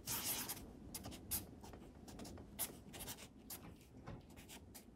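A red pen writing on watercolor paper: a series of short, scratchy pen strokes, the first one longer and louder than the rest.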